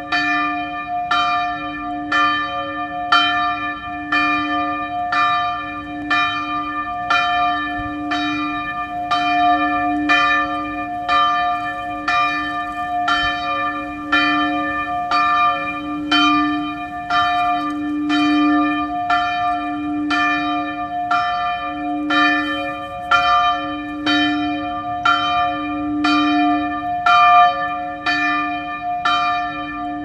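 A single church bell rung over and over at an even pace, about one stroke a second. Each stroke blends into the ringing left by the one before, and a low hum carries through.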